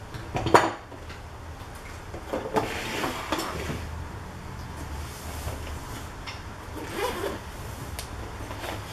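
Hard knocks and clacks of a polymer pistol, its magazine and a plastic hard case being handled on a wooden table, loudest a sharp clack about half a second in. Later comes a rustle of a canvas bag being moved.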